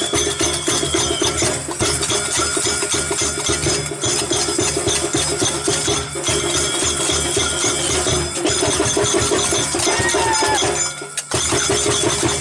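Loud rhythmic music with dense, driving percussion and held tones. It drops out briefly about eleven seconds in, then comes back.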